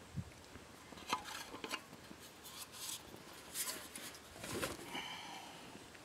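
Faint, scattered clinks, taps and scrapes of lightweight metal camp cookware and a metal bottle being handled, with one short metallic ring about five seconds in.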